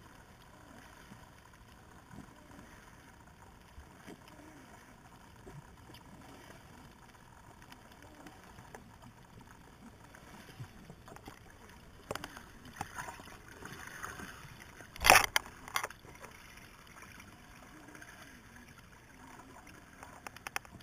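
Muffled underwater ambience heard through a camera housing: a low hiss with faint scattered ticks and crackle, getting busier in the second half. About fifteen seconds in there is a sudden loud rush lasting under a second, followed by a smaller one.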